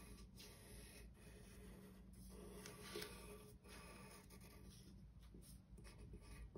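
Faint scratching of a graphite pencil drawing lines on folded copy paper, in short irregular strokes.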